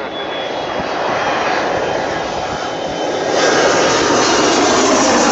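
The two Rolls-Royce Dart turboprop engines of a Hawker Siddeley Andover C1 running as it moves along the runway. The engine noise grows louder, with a clear step up about three seconds in.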